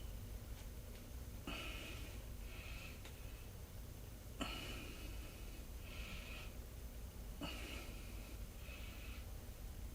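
A person breathing audibly and rhythmically, a breath in and a breath out about every three seconds, over a steady low hum.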